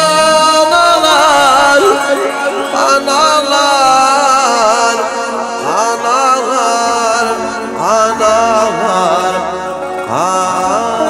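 Live band music in a Middle Eastern style: a lead melody with several upward pitch slides over a sustained keyboard accompaniment.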